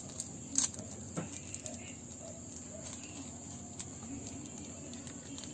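Steady high chirring of a cricket chorus, with a few light clicks and knocks on top, the loudest about half a second in.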